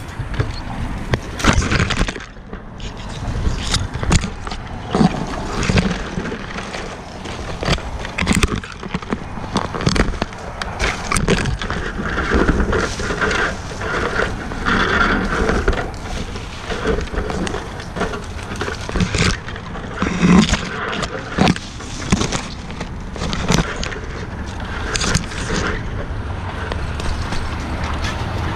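Tree branches being cut by hand: repeated sharp snaps and cracks of twigs, with leafy branches rustling, over a steady low rumble.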